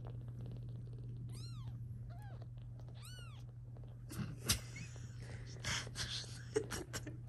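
Newborn British Longhair/Shorthair kittens mewing: three short, high mews that rise and fall in pitch in the first three and a half seconds, the middle one fainter. From about four seconds in, rustling and sharp taps take over.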